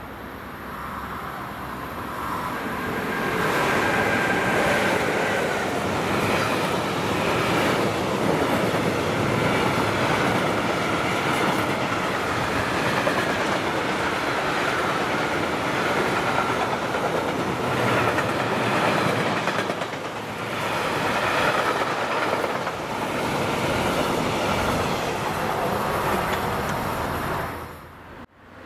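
A train passing on the track, its wheels clattering over the rails with a faint high whine, building up about three seconds in and running on for over twenty seconds before cutting off suddenly.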